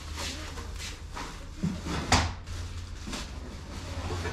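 Plastic packaging rustling as parts are handled, with one sharp knock about two seconds in. A low steady hum runs underneath.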